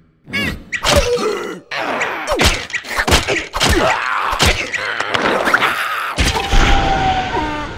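Cartoon larva characters' wordless groans and cries, mixed with a run of thuds and knocks as they struggle.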